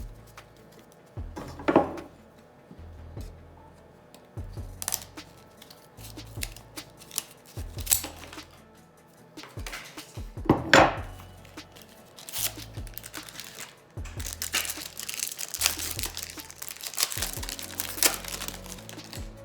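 Crinkling and tearing of Pokémon booster-pack wrappers and plastic blister packaging, with sharp crackles about two seconds in and again near eleven seconds and a longer run of dense crinkling near the end. Quiet background music with a low pulsing bass plays underneath.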